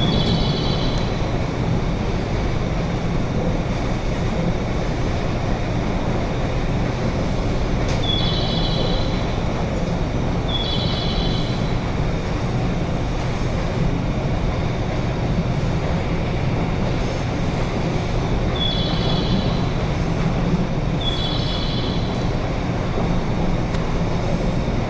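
Steady low hum of a stationary JR 201-series electric train waiting to depart, its equipment running with no motion. A short high chirping tone sounds in pairs a few times over it.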